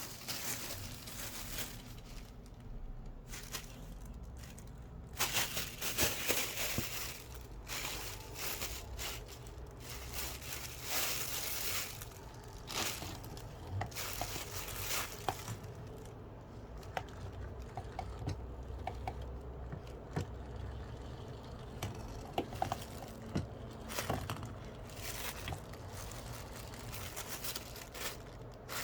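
Plastic bag crinkling and rustling in irregular bursts as a kitten plays with it, with scattered faint ticks.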